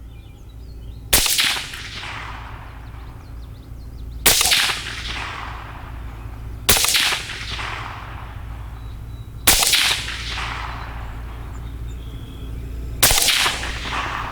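Five suppressed shots from a CMMG Banshee 5.7x28 pistol fitted with an Energetic Armament Nix Mod 2 suppressor, firing FN 27-grain factory rounds. The shots come about two and a half to three and a half seconds apart, each with a short ringing tail.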